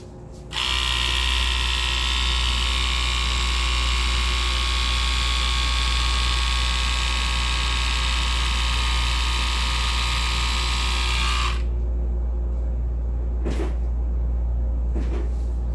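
Split Ender Pro 2 split-end trimmer's small electric motor running steadily as it is passed through hair. It starts about half a second in and cuts off suddenly about eleven seconds in.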